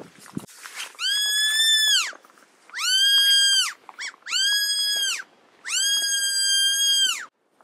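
A hand-held fawn-in-distress deer call, blown four times. Each is a long, high bleat that rises quickly, holds a steady pitch and drops away at the end, and the last is the longest. It imitates a deer fawn crying for its mother, to bring deer out of cover.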